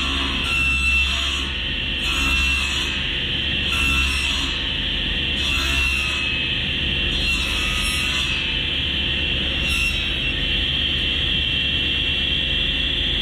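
SawStop table saw running with a steady high whine, its blade cutting into a roll of paint protection film. The cutting noise swells about every second and a half to two seconds as the roll is turned against the blade, then stops after about ten seconds while the saw keeps running.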